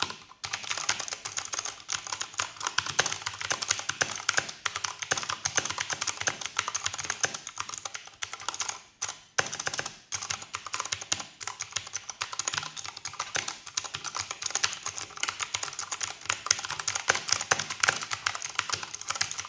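Fast typing on a Drop ALT mechanical keyboard with Cherry MX Blue clicky switches: a dense, continuous run of sharp key clicks, broken by a few short pauses about halfway through.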